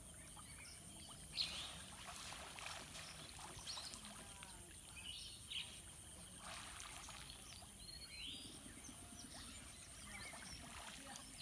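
Water dripping and splashing back into the pond from a large bamboo-framed lift net as it is hoisted, in several swells of hiss. There is a sharp click about a second and a half in, a few birds chirping, and a steady high-pitched whine throughout.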